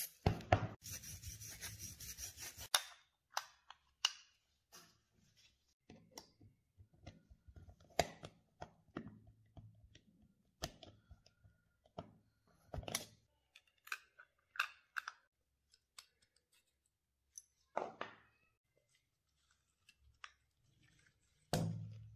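Small steel parts of a Tokarev TT-33 pistol being handled and fitted into the frame with a hand tool: scattered sharp metallic clicks and light taps. It opens with about two and a half seconds of steady rubbing and ends with a heavier knock.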